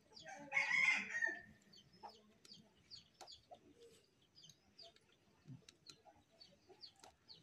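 A rooster crows once, about a second long, near the start. Faint scattered clicks and taps from eating off steel plates follow.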